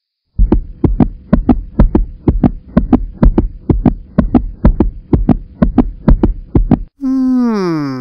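An edited-in backing track of deep, evenly repeating drum thumps, about four a second, over a faint steady hum. Near the end it gives way to a long pitched tone that slides down in pitch.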